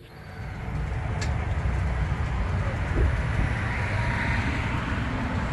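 Motor vehicle running steadily, a low engine rumble with road noise that comes up about half a second in.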